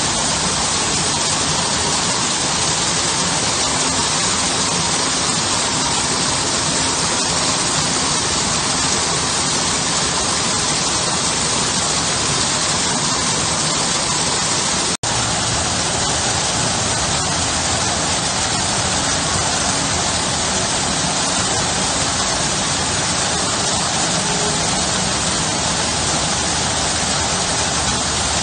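Garden waterfall pouring over a stone wall into a shallow pool, a steady rush and splash of falling water. It drops out for a split second about halfway through.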